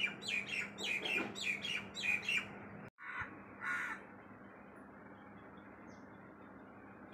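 A crow cawing in a quick run of about eight harsh calls, roughly three a second. The sound drops out for an instant, two more caws follow, and then only a faint steady background remains.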